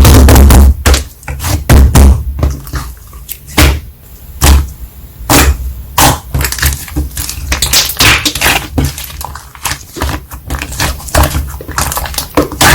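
Slime being squished and pressed by hand, giving irregular sticky pops and crackling clicks with a few heavy low thuds near the start.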